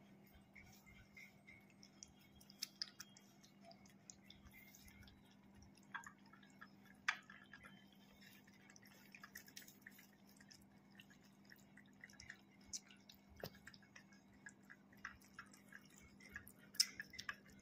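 Several cats lapping from a plate: faint, quick wet ticks and clicks, with a steady low hum underneath.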